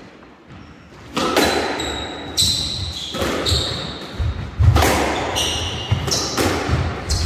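Squash rally: a hard rubber squash ball cracked by rackets and smacking off the court walls roughly once a second, each hit echoing in the enclosed court. High shoe squeaks on the wooden floor and heavy footfalls come between the shots.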